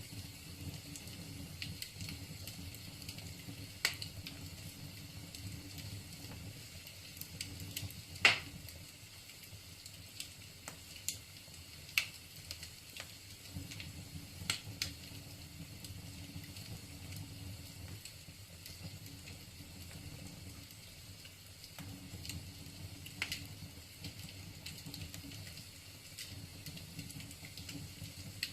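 Wood fire crackling in a fireplace: a steady low rustle of burning logs with sharp, irregular pops every few seconds, the loudest about eight seconds in.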